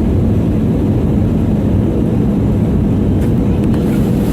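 Steady cabin noise of an Airbus A320 in flight: a loud, even drone of the jet engines and rushing air, with a faint steady hum.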